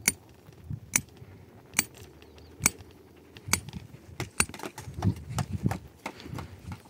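Hammer striking a tent stake into the ground, about six sharp, evenly spaced blows a little under a second apart, followed by footsteps on dirt.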